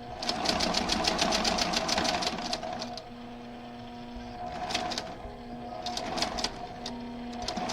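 Domestic sewing machine stitching: a fast run of stitches for about two and a half seconds, then several short bursts as fabric pieces are fed through one after another.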